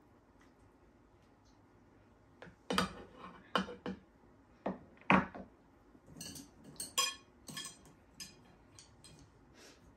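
A ladle knocks and clinks against a stainless steel saucepan and a plate as stew is dished out, with the loudest knock about halfway through. Lighter, brighter clinks of a spoon on the plate follow.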